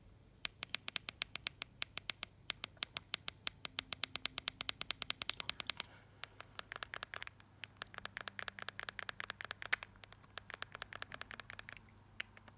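Mobiwire Sakari mobile phone giving rapid keypad clicks, about eight a second, in two runs: a higher-pitched run of about five seconds, then straight after a lower-pitched run of about six seconds.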